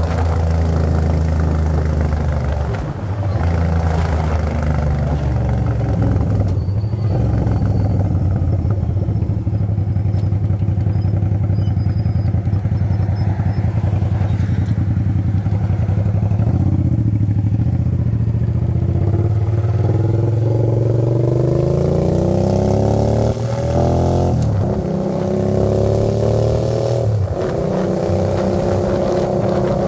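Hyosung GV650 V-twin engine running through a newly fitted exhaust, holding steady revs at first. About two-thirds of the way in the revs climb, with two brief dips like gear changes as it accelerates.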